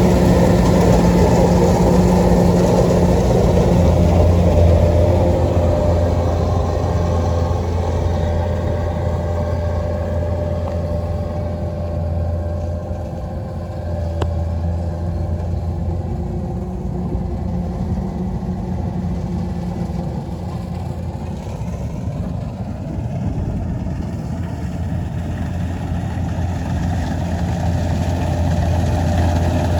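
Kubota DC-93 combine harvester's diesel engine running steadily as it harvests rice, a constant low hum that eases off through the middle and grows louder again near the end.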